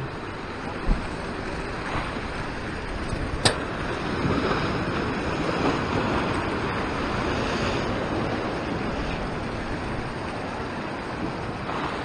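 Ocean surf washing over and around a rock ledge: a steady rush of breaking, foaming water, with some wind on the microphone. A brief sharp click sounds about three and a half seconds in.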